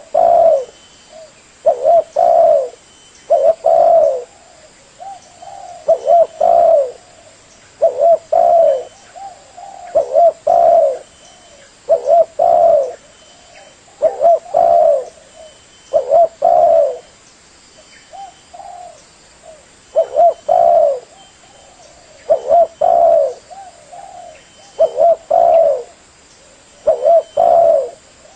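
Spotted dove (tekukur) cooing: a low two- or three-note coo phrase, repeated about every two seconds.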